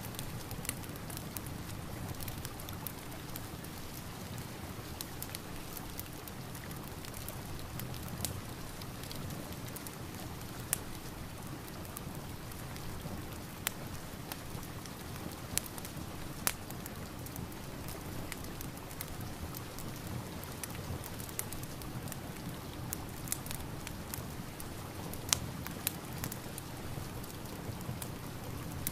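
Steady rain mixed with a wood fire crackling, with irregular sharp pops every second or few.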